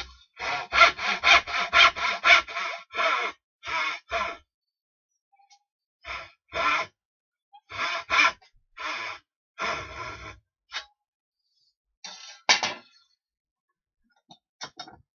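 Back-and-forth strokes of a hand tool rubbing on wood. They come about four a second for the first two seconds, then in short runs broken by pauses.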